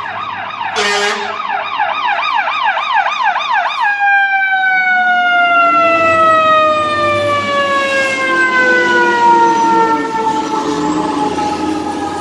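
Fire engine's siren on a call: a fast yelping warble with a brief horn blast about a second in. About four seconds in it switches to a long wail that falls steadily in pitch as the engine passes, with the truck's engine underneath.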